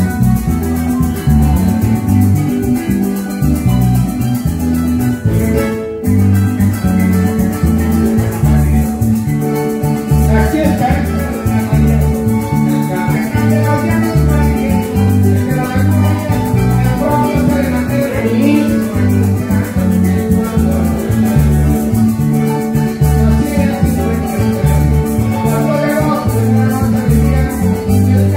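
Live Venezuelan música llanera: a harp playing over plucked strings, maracas and a steadily moving bass line.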